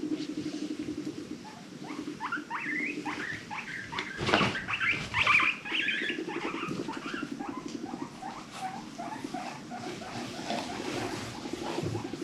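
Guinea pig vocalising: a low, rapidly pulsing purr broken by a run of short rising squeaks, soft wheeks about three a second, loudest a few seconds in, with the purr returning under the later squeaks.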